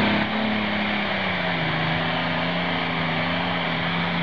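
Engine of a modified International 666 pulling tractor running hard under full load as it drags a weight-transfer sled. Its steady note drops slightly in pitch about a second and a half in.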